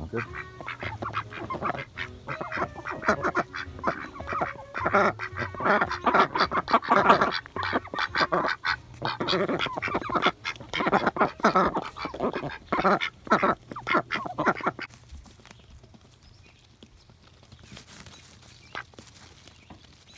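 A small flock of domestic ducks quacking close by in rapid, overlapping calls, loudest in the middle. About fifteen seconds in, the calling drops to a few faint calls.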